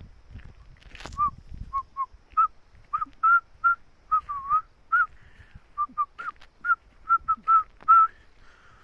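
A person whistling a short tune: about twenty brief, clear notes at shifting pitches, one dipping and rising again, in an uneven rhythm.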